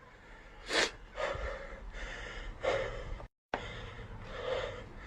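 A man breathing audibly between phrases of recitation: a sharp gasp-like intake under a second in, then several softer breaths. The audio cuts out completely for a moment a little past halfway.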